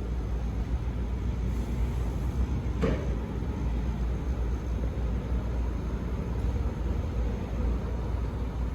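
DEPRO DP-3E refrigerated air dryer running with a steady low hum and noise, with a single click about three seconds in.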